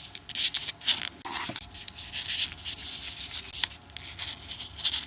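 Folded paper 3D origami units rustling and rubbing against each other and the fingers as they are slotted together, a string of short, irregular, crisp scratchy rustles.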